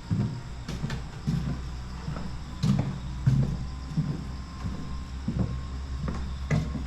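Footsteps of a person walking, roughly one to two steps a second, over a steady low hum.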